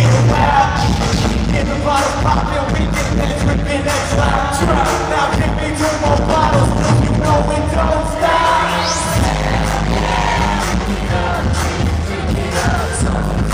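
Loud live hip-hop dance music over an arena sound system: a heavy, regular beat with a performer's vocals into a microphone, and a rising sweep about eight seconds in.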